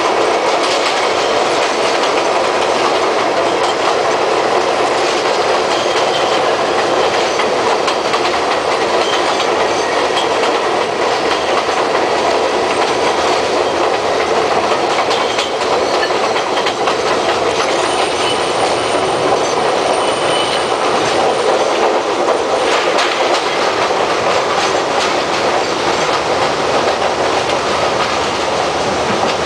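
St. Louis Car Company R42 subway cars running on elevated track, heard at the end of the car by the gap between cars: steady loud wheel and track noise with clickety-clack over the rail joints. A faint high wheel squeal comes in briefly about two-thirds of the way through.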